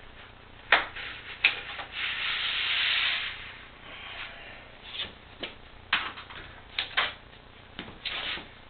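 Hands working double-sided tape against a metal garage door panel: scattered sharp clicks and taps, and one rasping rub lasting about a second, about two seconds in.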